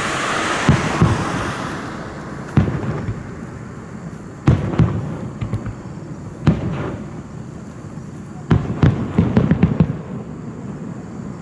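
Fireworks shells bursting: separate deep booms every couple of seconds, each trailing off in a rumbling echo, then a quick run of bangs with crackling near the end. A hiss fades away over the first two seconds.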